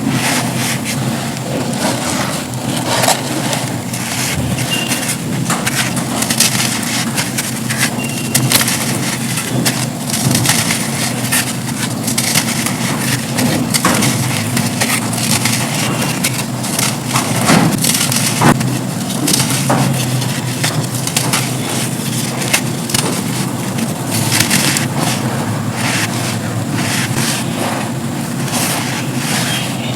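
Dry black sand slabs being crushed and crumbled: a continuous dense crunching with many sharp cracks throughout.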